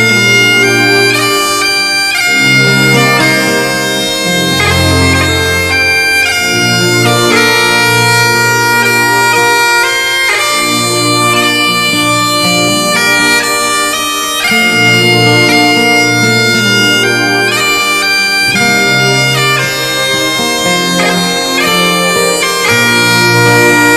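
Bagpipe music: a melody of held notes that change every second or two over low sustained notes.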